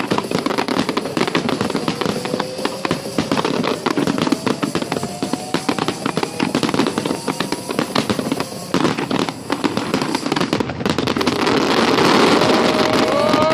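Fireworks crackling densely and continuously. A faint tone rises slowly under them, and near the end the crackle gives way to a steadier hiss with a pitched tone sliding downward.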